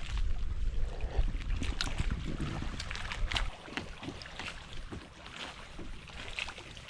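Kayak paddle strokes on calm water: splashes and dripping from the blades, with a low rumble that stops about halfway through.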